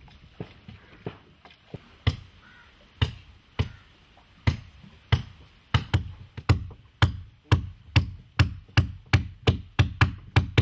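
Repeated sharp knocks of a hand tool striking wood as a carpenter works the coconut-fibre stitching inside a sewn boat's wooden hull. There are a few faint taps at first, then loud blows from about two seconds in, about one a second, quickening to about three a second.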